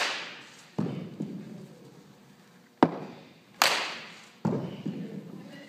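Bat hitting a ball twice, each sharp crack echoing in the gym, and each followed a moment later by a duller thud. A short sharp click comes just before the second hit.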